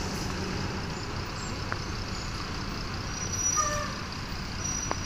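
Steady low rumble of idling tour-bus diesel engines. About three and a half seconds in, a short, falling, high-pitched call cuts through.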